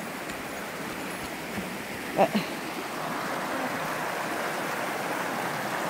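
A small mountain stream rushing and splashing steadily as it cascades over rocks, growing a little louder about three seconds in. A brief vocal sound comes about two seconds in.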